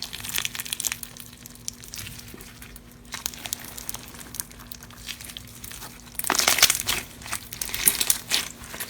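Slime being squished and pressed by hand, making a dense run of small crackles and crinkles, louder in a burst about six seconds in and again near the end.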